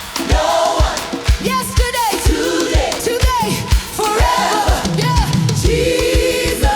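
African gospel praise music: an upbeat song with a steady drum beat and a choir of voices singing without clear words.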